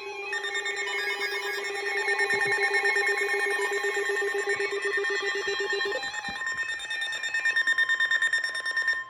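Electronic emergency alert alarm sounding: a harsh pattern of several steady tones that pulse rapidly, shifting in pitch about two-thirds of the way through, then cutting off suddenly. It signals an incoming weather warning.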